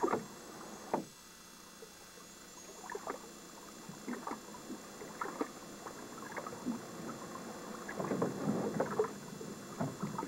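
Choppy lake water slapping against a small boat's hull in irregular splashes, busiest about eight seconds in.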